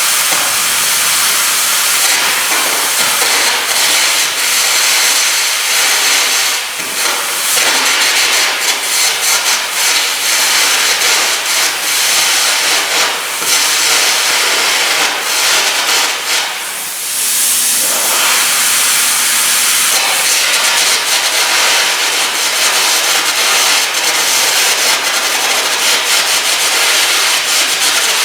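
Air-carbon arc gouging: a loud, steady hiss from the compressed-air jet and arc, with brief breaks about six and a half and seventeen seconds in.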